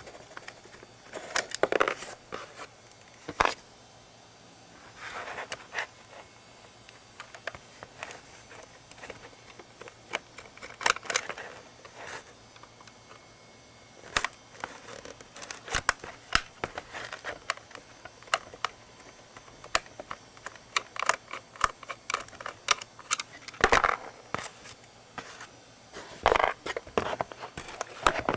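Plastic parts of a Dyson vacuum's motorised cleaner head being handled and taken apart: irregular clicks, knocks and short scraping rustles, with brief pauses between bouts.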